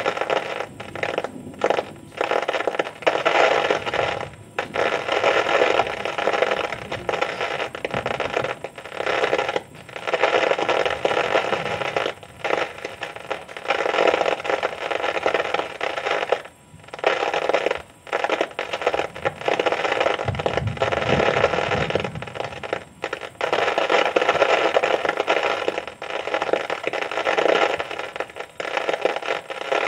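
Heavy thunderstorm rain pouring down, a dense hiss that surges and eases every few seconds.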